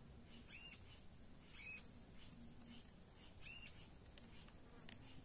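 Faint bird calls: three short chirps that rise and fall in pitch, spaced one to two seconds apart, over a steady high insect trill. A single sharp click near the end.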